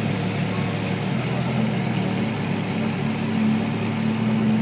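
Ferrari V8 engine idling steadily at low revs.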